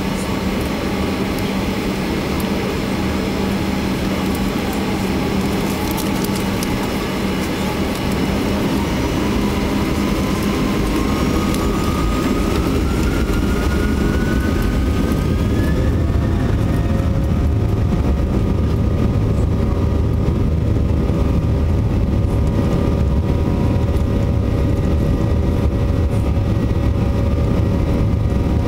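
Boeing 737-800's CFM56-7B jet engines heard from the cabin over the wing, spooling up for takeoff: a whine rises steadily in pitch for several seconds. After that, a deep rumble builds as the plane accelerates down the runway on its takeoff roll.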